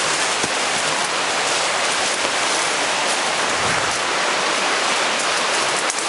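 Rushing water of a waterfall, a steady even hiss.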